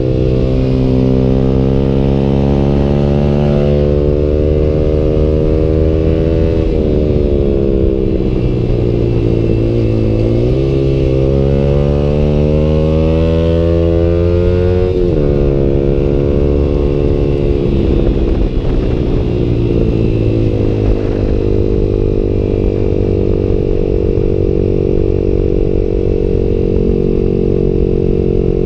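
Yamaha YZF-R15's single-cylinder engine running through a Tridente F21 full-system exhaust while riding. Its revs fall and climb several times in the middle, with a sudden step up partway through, then hold fairly steady.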